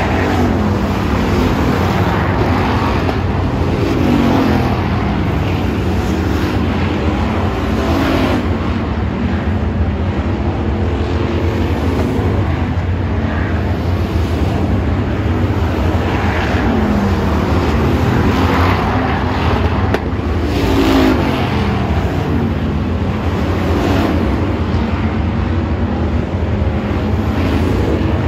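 A field of hobby stock race cars running laps on a dirt oval, their engines loud and continuous. Every few seconds a car passes close by with a falling-pitch sweep.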